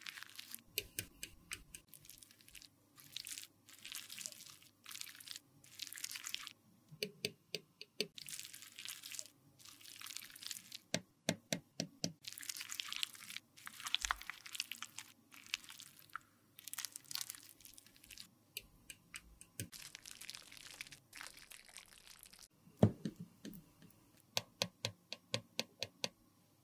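Metal spatula cutting lipstick off its bullet and pressing it into a palette pan: soft, sticky crackling scrapes broken by quick clicks of the blade, with one sharper tap near the end.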